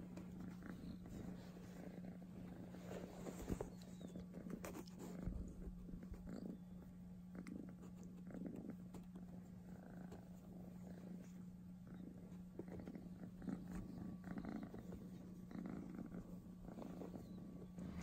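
Young kitten purring steadily while it is stroked.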